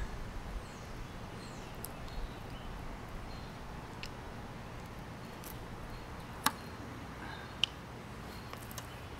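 Quiet outdoor background with faint bird chirps and three sharp clicks, the loudest about six and a half seconds in.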